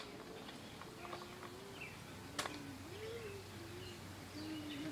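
A dove cooing faintly in a series of low, soft notes, the middle one rising and then falling in pitch. A single faint click sounds about halfway through.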